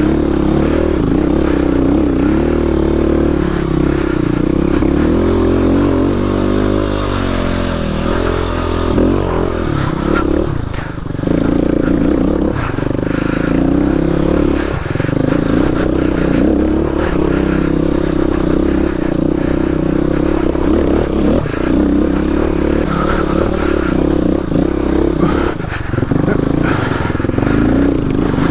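Kawasaki KLX250S single-cylinder four-stroke engine working up a rocky climb, its revs rising and falling with the throttle and briefly dropping off about 11 and 15 seconds in. Clatter and scraping from the tyres and bike over rock run underneath.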